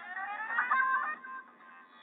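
A Nokia 5630 XpressMusic ringtone playing through a Nokia 216 phone's loudspeaker. It is a short electronic tune that opens with rising, sliding tones and ends on a few held notes that fade out about halfway through.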